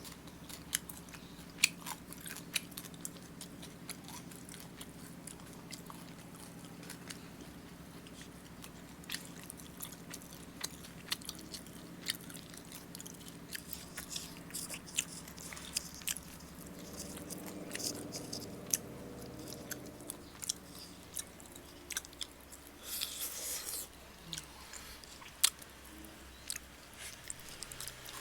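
Close-up eating sounds of grilled chicken being bitten and chewed, with many scattered sharp clicks and crunches over a steady low hum. A brief rustle about three-quarters of the way through.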